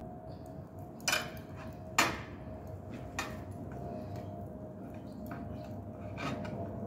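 Knife cutting raw lamb into kebab pieces on a cutting board set on a metal tray, with a few sharp knocks and clinks of the blade against board and tray, the loudest about two seconds in.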